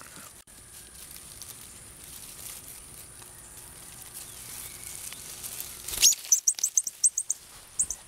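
Cardinal giving a quick run of short, very high chips, starting about six seconds in after a quiet stretch with faint outdoor background.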